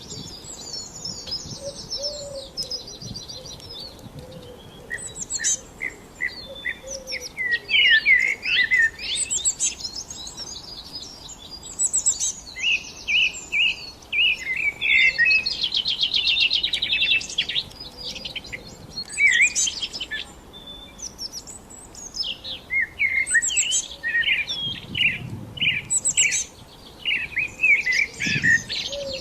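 Songbirds chirping and singing in overlapping short phrases, with a rapid trill about halfway through.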